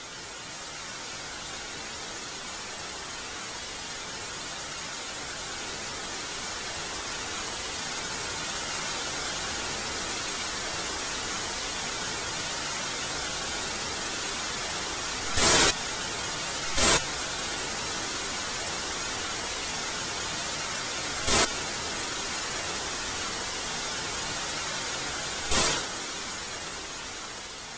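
Steady static-like hiss that swells in at the start, with a thin high-pitched whine throughout. Four short, loud bursts of noise break in: two about a second and a half apart around the middle, then two more several seconds apart.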